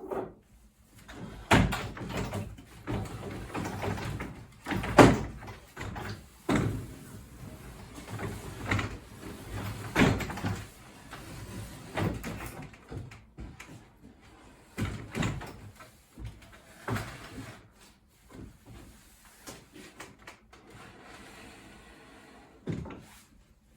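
Wooden prototype roof section and hinge being handled and repositioned: a series of irregular wooden knocks and clunks with some rubbing between them, the loudest about 5 and 10 seconds in.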